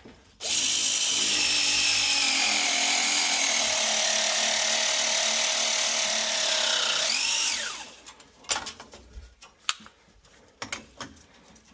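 Battery-powered press tool crimping a 1¼-inch copper press fitting: the motor runs steadily for about seven seconds, its pitch sagging a little under load, then gives a quick rising and falling whine and stops. A few clicks and knocks follow as the tool is handled.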